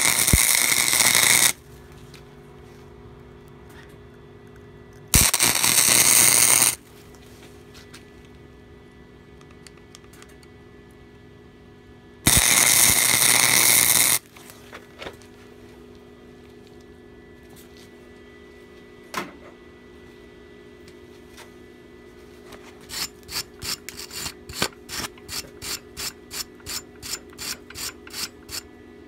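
Electric arc welding a washer onto a steel pin, heard as three crackling bursts of one to two seconds each in the first half, with a steady hum underneath. Near the end a wire brush scrubs the fresh weld in quick strokes, about three a second.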